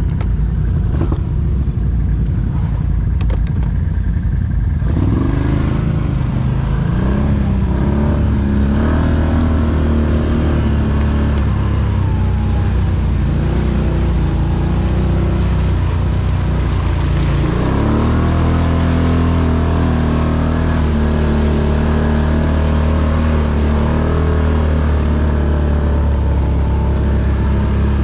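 Can-Am ATV engine running at low revs for about five seconds, then revving up and down repeatedly as the quad is ridden at low speed.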